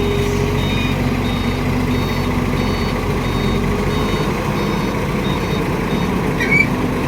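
A wheeled excavator's diesel engine runs steadily under a high-pitched backup alarm that beeps about every half second. There is a brief high squeak about six and a half seconds in.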